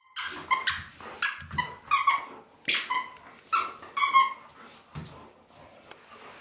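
A golden retriever chewing a toy, with a rapid series of short high squeaks, about two a second, that die away after about four seconds.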